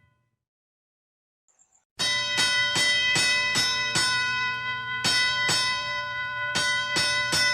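Boxing ring bell struck rapidly and repeatedly, about fifteen ringing clangs at two to three a second, starting after two seconds of silence.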